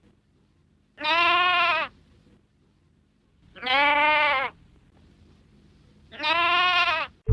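A lamb baaing three times, each bleat about a second long with a quavering pitch that drops at the end, evenly spaced a couple of seconds apart.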